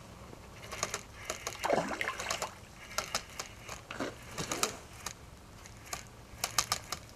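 A hooked fish splashing at the surface as it is played in, with bunches of sharp clicks from the spinning reel as the line is wound.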